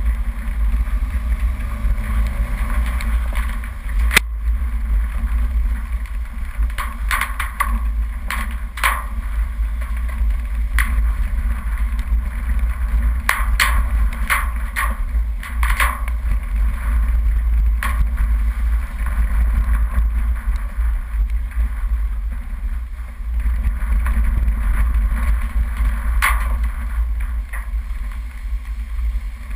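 Off-road 4x4 driving down a rough dirt forest track: a steady, heavy low rumble from the vehicle, with scattered knocks and rattles as it goes over bumps. The sharpest knock comes about four seconds in.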